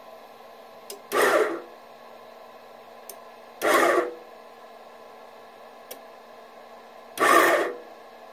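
RosinTeaBag 4.0 20-ton electric rosin press motor running in three short bursts of about half a second each, each one starting just after a small click, over a steady hum. The pattern fits pressure being bumped up in steps while the rosin squeezes out.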